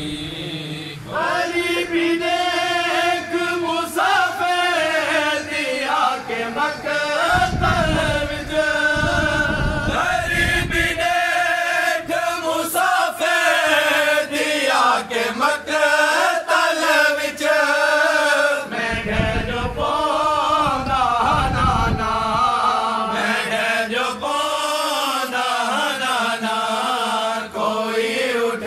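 A man's voice chanting a noha, a lament for Hussain, unaccompanied, in long held melodic lines.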